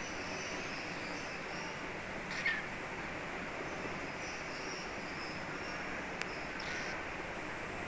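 Cockatiel giving a short chirp about two and a half seconds in and another near the end, over a steady hiss with faint high chirping. A single sharp click comes about six seconds in.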